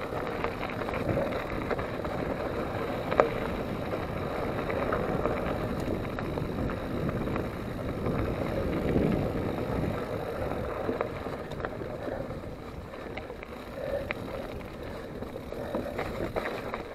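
Mountain bike riding fast over a dirt and loose-stone singletrack: steady tyre and rolling noise with wind on the microphone, broken by knocks and rattles over bumps, the sharpest about three seconds in.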